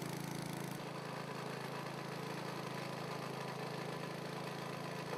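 Steady low hum of a running machine, unchanging in pitch and level.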